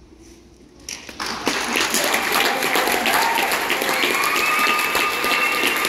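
Audience applause breaking out about a second after a choir's last note and quickly swelling into loud, steady clapping. A long high-pitched cheer is held over it in the second half.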